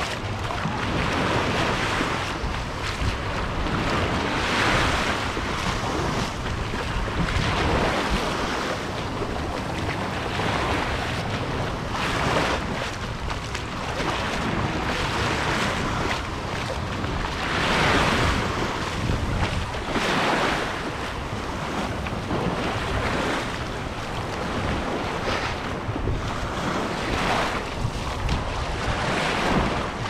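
Sea waves breaking and washing up the beach, swelling every few seconds, with wind on the microphone.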